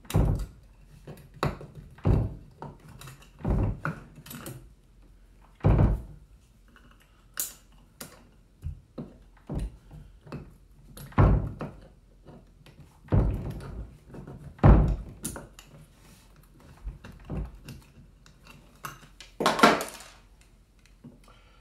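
Irregular dull knocks and clicks of needle-nose pliers and solid copper wire against a metal electrical box, as a ground wire is bent and wrapped around the box's grounding screw. There is a longer, louder scrape near the end.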